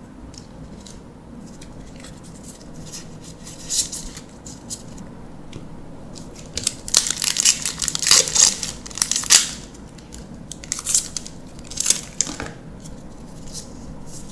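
Foil wrapper of a Magic: The Gathering draft booster pack crinkling and being torn open, densest from about seven to nine and a half seconds in, followed by a few shorter crinkles.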